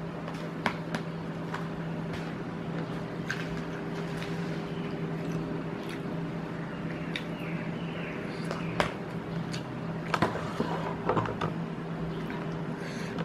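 Eating sounds: a metal spoon clicking and scraping against a plastic meal tray, with a cluster of louder clicks about ten seconds in, over a steady low hum.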